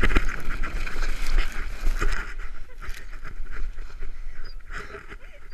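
Sled sliding fast down a snowy hill: a hissing scrape of the runners over the snow with knocks as it bumps, and wind buffeting the microphone, growing quieter after about two seconds.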